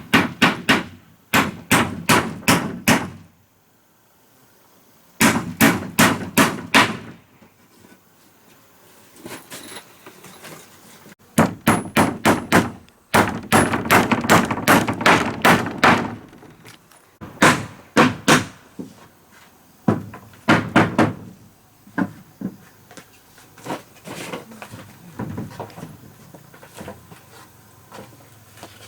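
Hammering: bursts of four to eight quick sharp blows with short pauses between, the later blows lighter and more scattered.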